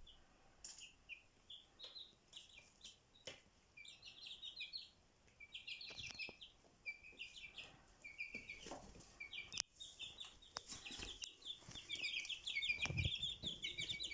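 Birds chirping in quick series of short, high notes, sparse at first and growing into a busy, almost continuous chatter toward the end, with a few sharp clicks in between.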